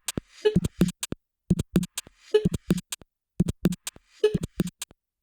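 Electronic background music: a choppy drum-machine beat whose short pattern of clicks, low thumps and a brief synth blip repeats about once a second, cut by silent gaps between the hits.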